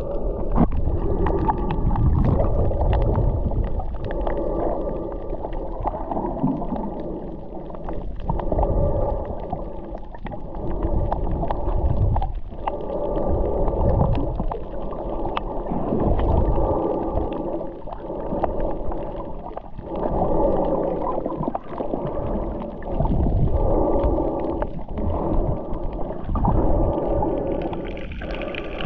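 Muffled underwater water sound picked up by a camera submerged while snorkelling: a dull rushing and gurgling that swells and fades every few seconds, growing brighter near the end as the camera nears the surface.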